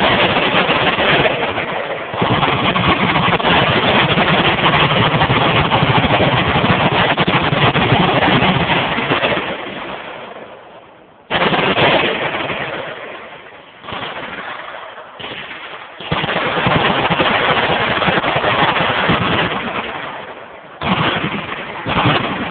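Machine guns firing full-auto from many guns at once, a dense, nearly unbroken volley for about ten seconds. It fades out, then resumes in several long bursts separated by short pauses.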